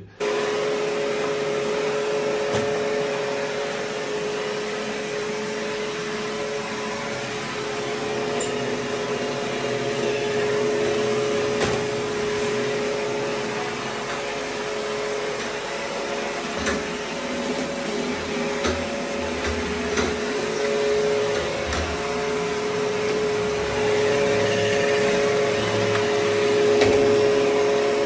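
iRobot Roomba i7 robot vacuum running: a steady motor hum with a high tone, and a few light clicks as it works along the edges.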